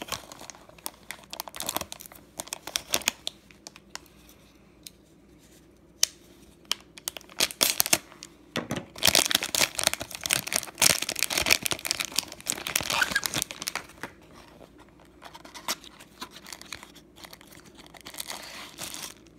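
Packaging crinkling and tearing as a newly delivered folding knife is unwrapped. There are scattered rustles and clicks, with a few seconds of dense crinkling about halfway through.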